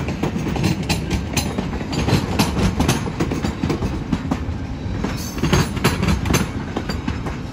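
VIA Rail Canada passenger train of stainless-steel cars rolling past: a steady low rumble with irregular clacks as the wheels cross rail joints.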